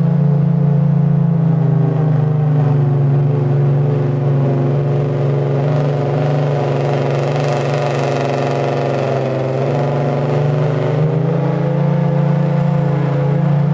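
Federal Signal Thunderbolt rotating outdoor warning siren sounding a steady wail, its tone swelling and fading as the horn turns. The pitch wavers slightly, which the owner takes as a sign of this worn-out siren getting worse.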